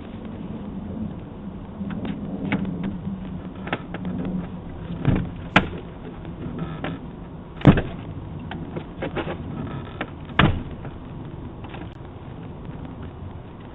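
A handful of sharp clicks and knocks, the loudest about seven and a half seconds in, over a low steady hum, heard through a doorbell camera's microphone.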